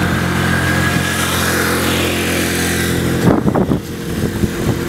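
An engine running steadily at a constant pitch, which cuts off abruptly about three seconds in; a brief clatter follows.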